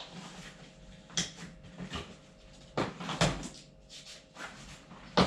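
Bags and gear being handled during packing: irregular rustling with a few sharp knocks, the busiest stretch about three seconds in and a sharp knock at the very end.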